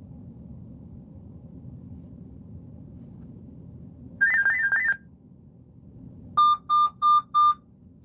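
Dell laptop's ePSA diagnostic beeping through its speaker: a quick warbling two-tone beep about four seconds in, then four short even beeps near the end. It is the diagnostic's error alert while the processor fan test reads 0 RPM, the fan not spinning.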